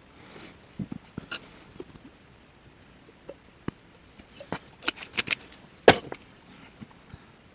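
Irregular wet clicks and pops of Elmer's glue slime being worked by hand, with a cluster of louder pops a little past the middle.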